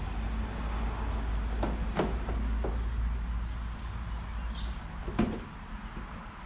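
Plastic front bumper cover of a Honda Civic knocking and clacking against the car as it is pushed into place: a few sharp knocks about two seconds in and a louder one near the five-second mark, over a steady low rumble.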